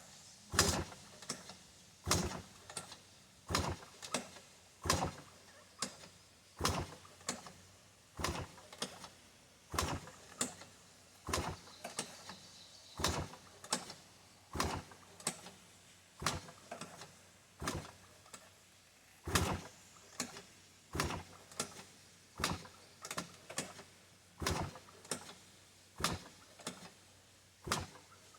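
Arctic Cat 90cc ATV being kickstarted over and over. The kick lever and engine clatter with each stroke, about once a second and often in quick pairs, but the engine never catches. This failure to start is one the owner blames on the carburetor.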